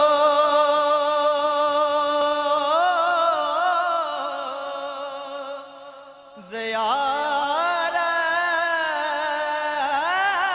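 A young man's solo voice reciting a naat, holding long wavering notes. Around six seconds in he lets a note fade, breaks off briefly, and comes back in on a new phrase.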